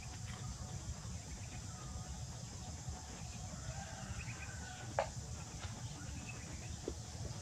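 Faint, short animal calls over a steady low rumble, with one sharp tap about five seconds in.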